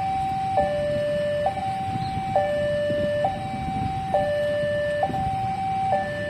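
Two-tone electronic warning alarm alternating between a higher and a lower tone, switching about every second, over a low background rumble.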